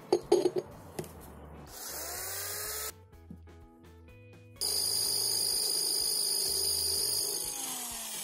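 Cordless drill boring through the bottom of a glazed ceramic salad bowl with a masonry-type bit. It makes a short run about two seconds in, then a longer steady run with a high whine from about halfway, and winds down near the end. A few sharp clicks come at the start.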